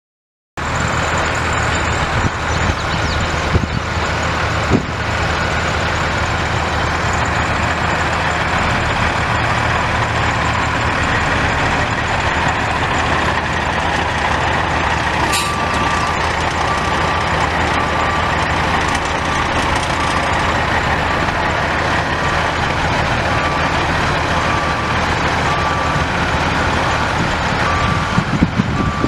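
International 9400i dump truck's Caterpillar C15 turbo diesel running steadily. About halfway through, a sharp click is followed by a reversing alarm beeping at an even rate, about once a second: the truck is in reverse.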